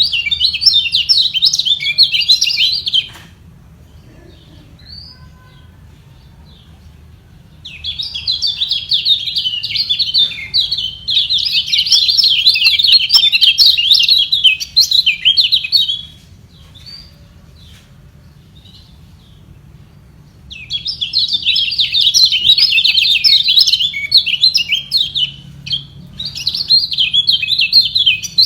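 Kecial kuning, a white-eye, singing in three long bouts of rapid, high chattering warbles, with short pauses and a few soft calls between them.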